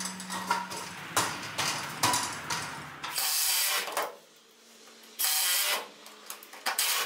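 Cordless drill driving screws through a Simpson Strong-Tie metal connector into a timber beam, in two short runs of under a second each, about three and five seconds in. A few scattered knocks and clicks come before them.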